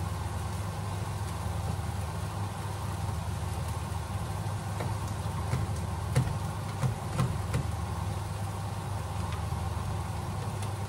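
Steady low kitchen hum, with a few light metal clicks and taps about halfway through as spätzle dough is scraped with a spoon through a metal spätzle maker over a pot of boiling water.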